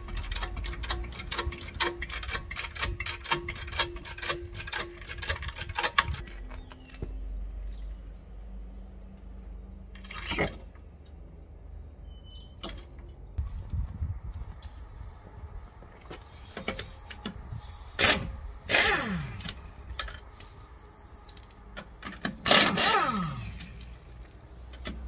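Trolley jack being pumped to lift the car, a fast run of regular clicks for about the first six seconds. Later come short bursts from an air impact wrench loosening the wheel bolts, loudest around eighteen seconds and again near twenty-three, each whine falling in pitch as the tool winds down.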